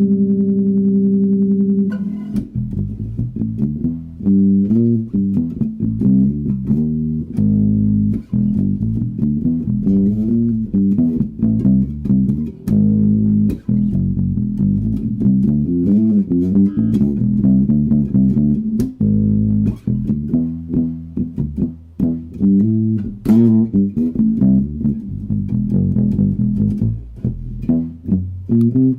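Electric bass guitar played through an Orange OBC 112 bass cabinet: a held note rings for about two seconds, then a continuous line of plucked notes follows.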